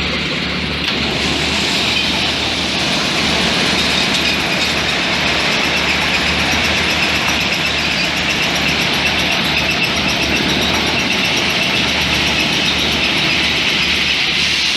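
Industrial production-line machinery running steadily: a constant low hum under a loud mechanical wash, with a fast, evenly repeating high-pitched clatter.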